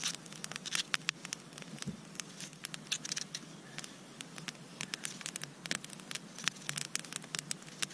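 Wood campfire crackling, with many sharp, irregular pops and snaps.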